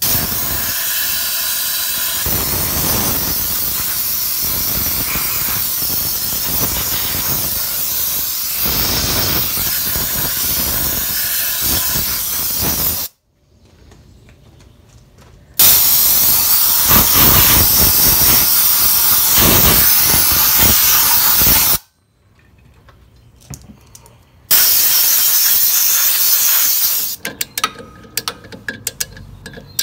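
Compressed-air blow gun hissing loudly in three long blasts, cleaning out a VW Beetle's transmission bellhousing. Near the end, a hand ratchet clicks on a clutch pressure plate bolt.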